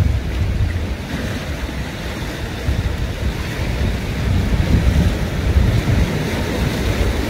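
Wind buffeting the microphone, a loud gusting low rumble.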